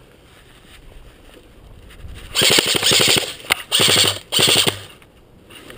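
Gas blowback airsoft Glock 18C pistol firing on full auto: a burst of about a second, then two shorter bursts, each a rapid rattle of shots.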